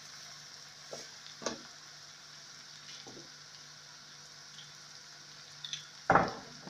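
A pan of fried vegetables sizzling steadily on a gas burner with a fresh load of mushrooms just added, with a few light knocks and one louder clunk near the end.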